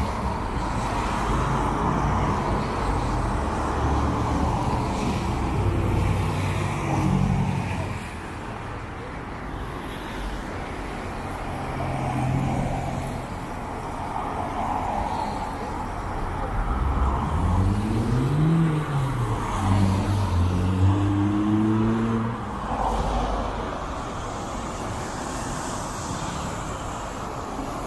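City buses and road traffic at a bus stop: engines running, with vehicles passing and pulling away. About two-thirds of the way through, one engine note rises and then falls.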